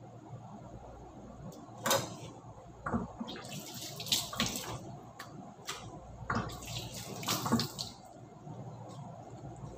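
Kitchen sink tap running and splashing as raw chicken pieces are rinsed under it, starting about three seconds in and stopping near the end. A sharp knock comes just before the water, and a few clatters come during it.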